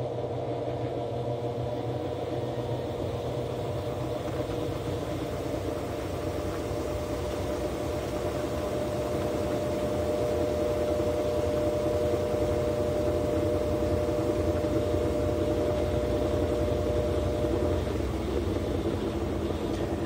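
GE 15 kg top-load washing machine in its final spin with a load of towels: a steady motor whine over a low rumble, growing louder partway through, with the whine stopping near the end.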